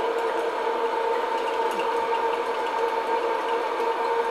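Hot air popcorn popper running: its fan motor gives a steady hum with a rush of blown air.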